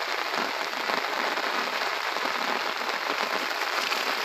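Heavy rain falling steadily, an even hiss of rain on the ground and vegetation.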